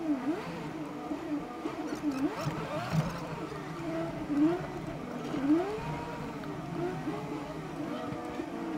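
A truck cab's engine running steadily in slow traffic, with a wavering pitched sound over it that keeps rising and falling about every half second.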